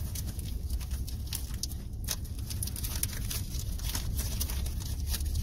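Steady low rumble of a car heard from inside the cabin as it idles and creeps forward in slow traffic, with irregular light ticks and taps over it.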